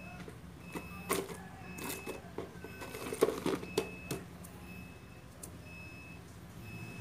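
Scattered light clicks and knocks of hands handling dishes, bunched about three to four seconds in, over a steady low hum.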